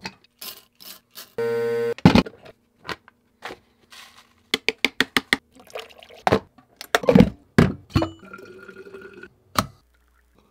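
Quick-cut coffee-making sounds: a string of sharp clicks and knocks from handling a coffee grinder and coffee maker, and a half-second burst of the electric grinder's motor about a second and a half in. Near the end there is a short stretch of liquid pouring.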